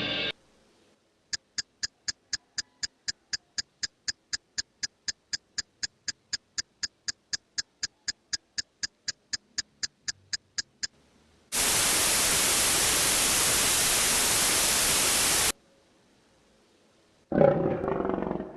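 A row of sharp, evenly spaced ticks, about four a second, with a bright ringing edge, runs for about ten seconds and stops. Then a steady burst of static-like white noise that starts and cuts off abruptly after about four seconds, and near the end the start of a short, pitched, rough sound.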